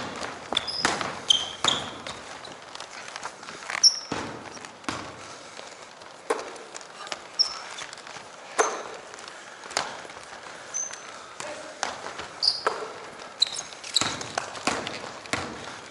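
Basketball bouncing on a hardwood gym floor in irregular sharp thuds, with brief high-pitched squeaks of sneakers on the court.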